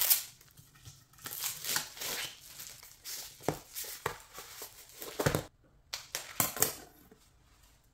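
Plastic wrapping and a paper sleeve crinkling and rustling as a roll of clear plastic shelf liner is unwrapped. Sharp clicks of handling and scissors come through between the rustles, most strongly in the second half.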